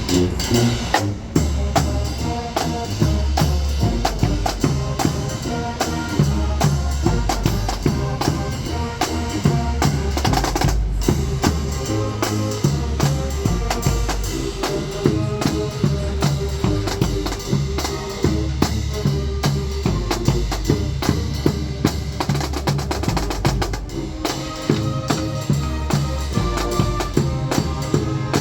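High school marching band playing, the drums leading with dense, rhythmic snare and bass drum strokes under short held notes from the wind instruments.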